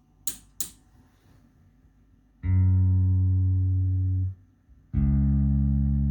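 Bass guitar through an amplifier: two faint clicks, then two long, low plucked notes, the second lower than the first, each held about two seconds and then cut off.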